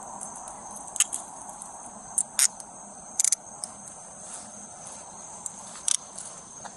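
A steady high chorus of night insects such as crickets, with a few sharp clicks close to the microphone.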